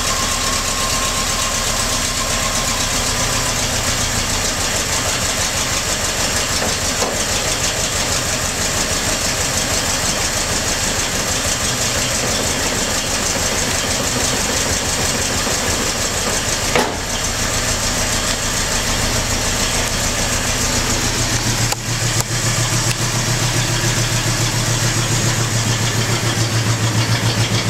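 1971 Plymouth Cricket's four-cylinder engine idling steadily while warming up after a cold start, with a single click partway through.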